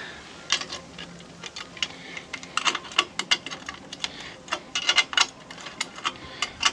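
Irregular metal clicks and taps, some in quick runs, as license plate screws are turned and fitted to a motorcycle's plate mount with hand tools.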